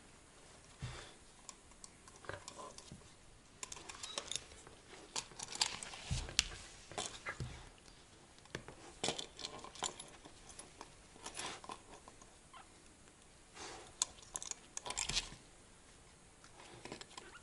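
A husky licking and nosing young kittens: quiet, scattered clicks and wet smacks, with small scratches as the kittens move about on the wooden floor.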